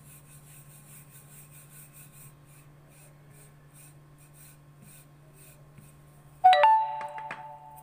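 Soft rolling of a wooden rolling pin over dough on a rolling board, under a faint steady hum. About six and a half seconds in comes a loud clang of steel kitchenware, several ringing tones with a couple of quick follow-up clinks that die away within a second.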